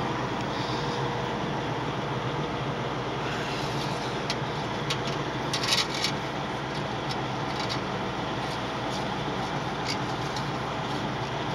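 Steady drone of machinery running nearby, with a few light metallic clicks and rattles around the middle and once near the end, loudest about six seconds in, as the engine oil dipstick is handled in its tube.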